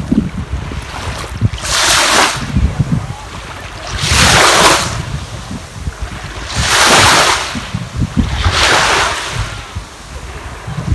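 Sea waves washing onto the shore, four breaks that swell and fade a couple of seconds apart, the middle two loudest, with wind buffeting the microphone.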